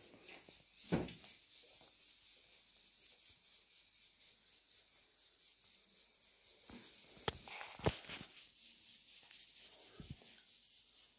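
Quiet kitchen room hiss broken by a few brief, soft knocks and rustles of ingredients being handled at the counter, one about a second in and a cluster of three between about 6.5 and 8 seconds.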